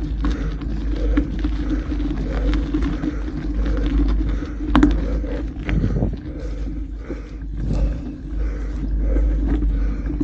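Wind buffeting the microphone during a mountain-bike ride: a steady low rumble with scattered clicks and rattles.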